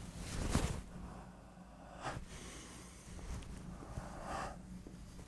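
Cloth swishes and soft movement sounds of a martial artist in a karate gi stepping out into a stance: one short swish about half a second in, with fainter ones near two and four and a half seconds.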